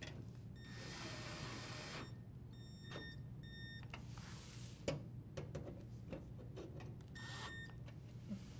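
A drill driver running in several short whining bursts, driving in the dishwasher's toe-kick screws, with light clicks and taps in between.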